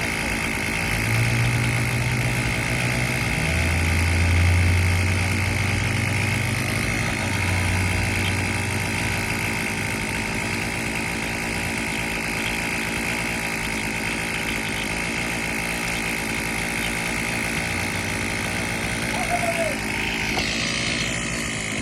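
An engine running steadily. Its low hum steps down in pitch a few seconds in, then fades back about ten seconds in.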